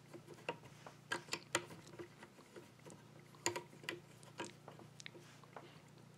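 Scattered light clicks and taps of a knife blade and metal parts being handled in a Wicked Edge sharpener's clamp as the blade is set in position, the sharpest around a second and a half in and again about three and a half seconds in, over a faint low hum.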